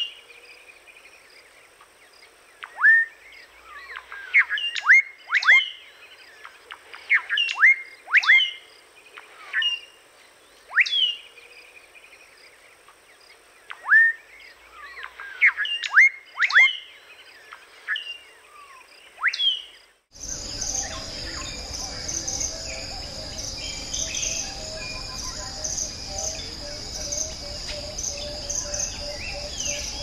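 A bird giving sharp calls that sweep steeply down in pitch, one every second or two. About two-thirds of the way through, the sound cuts to a dense, steady buzz of insects in forest, with other birds calling.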